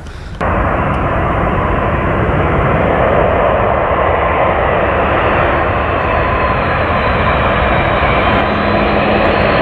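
McDonnell Douglas MD-11 freighter on final approach, its jet engines making a loud steady roar with a thin whine over it. The roar cuts in abruptly about half a second in.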